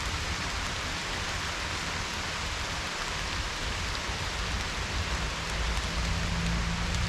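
Steady rain falling and pattering on surfaces, an even hiss.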